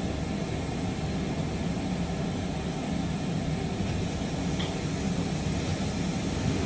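Steady drone of industrial woodworking machinery and dust extraction running in a shop, an even noise with no distinct strikes or changes.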